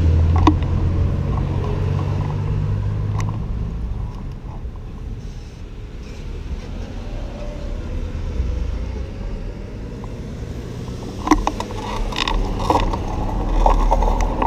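Cars passing close by at a street intersection, their engines and tyres making a low rumble. The rumble is loudest at the start and fades within a few seconds, another car goes by in the middle, and short clicks and knocks come near the end.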